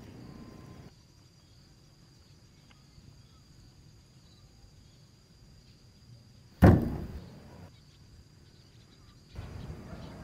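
Light outdoor background noise that cuts out about a second in. About six and a half seconds in comes a single sudden deep boom that dies away within about half a second, and the outdoor background noise returns near the end.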